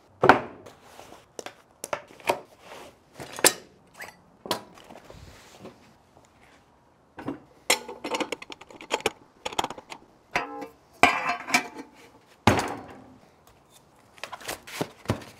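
Handling sounds on a wooden butcher block: a series of separate knocks, thunks and metal clinks as a meat grinder's stainless head, ring and tools are set down and fitted together, with a faster run of clicks in the middle. Near the end, a knife cuts the plastic wrap on a packaged brisket.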